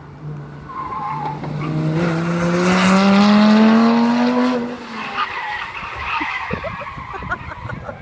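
Lamborghini Gallardo's V10 engine accelerating hard, its note rising steadily in pitch for about three seconds and loudest a little past halfway. Then it drops away suddenly and carries on fainter and uneven as the car moves off.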